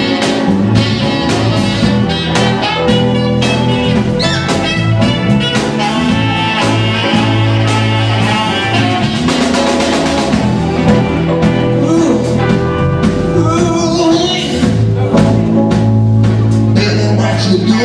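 Live band playing a blues-jazz groove: alto saxophone lead over electric bass guitar and drum kit, steady and loud.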